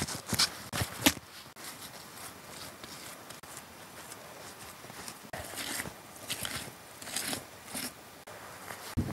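Gloved hands working wet mud between flat stone slabs on an ondol floor: several sharp taps in the first second, then softer wet scraping and squelching as the mud is spread and smoothed.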